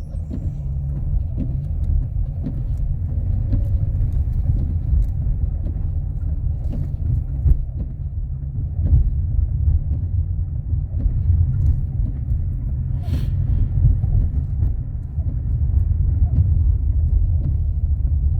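Steady low rumble of a car's engine and tyres heard from inside the cabin, driving up a snow-covered hill.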